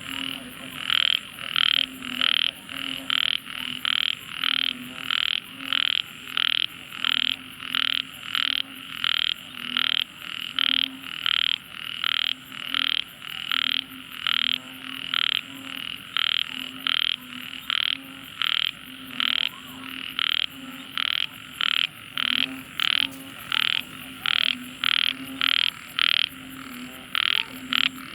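Tiny frog calling over and over, a deafening series of short, shrill notes about twice a second.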